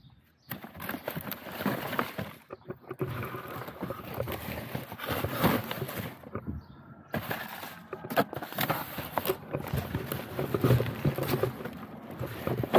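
Irregular rustling and crackling with many sharp clicks and knocks, from litter being picked up and handled into a bag. It breaks off briefly about halfway through.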